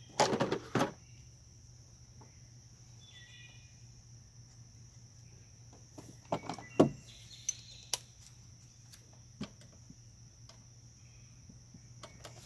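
Scattered metallic clinks and knocks of hand tools working on engine parts: a cluster right at the start and another about six to seven seconds in, with a few lone taps after. A steady low hum and a steady high-pitched whine run underneath.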